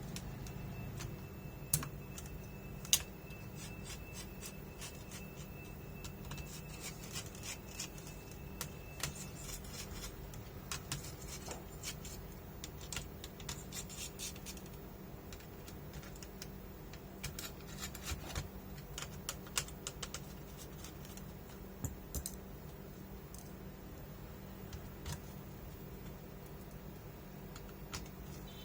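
Scattered small clicks and taps of hands and tools handling laptop parts, over a steady low hum. A faint thin high tone sounds for the first several seconds.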